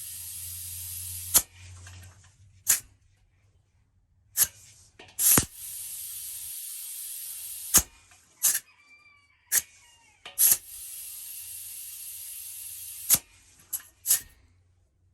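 Air hissing in three steady stretches through the air valve of a well pressure tank while it is set to 28 psi, with sharp clicks as the air chuck or gauge is pressed on and taken off the valve.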